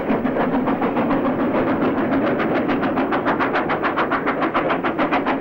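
GWR Hall class two-cylinder 4-6-0 steam locomotive climbing a 1 in 110 bank with a passenger train, its exhaust beating in a rapid, even rhythm.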